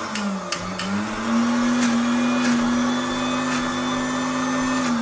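Electric mixer grinder running, grinding a jar of tomato, whole dried red chilies and spices into a fine marinade paste. The motor's pitch sags briefly about half a second in, climbs back and then holds steady, with a few sharp ticks over it.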